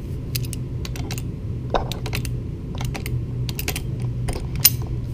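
Locking pliers and a screwdriver clicking and tapping against a steel sensor bracket and its small screws and nuts: an irregular run of short, sharp metallic clicks, the loudest a little before the end.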